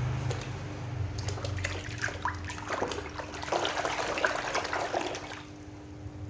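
Water splashing and trickling with many small clicks and knocks as plastic toy animals are washed, dying away about five seconds in.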